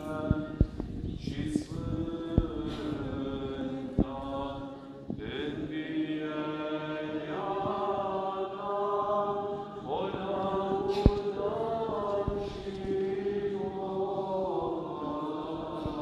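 Orthodox liturgical chant sung by several voices in long held notes that shift from phrase to phrase. A few sharp clicks cut through it, the loudest about eleven seconds in.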